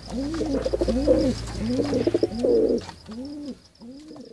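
Pigeons cooing: a run of rolling coos, each rising and falling, about two a second, growing softer in the last second or so.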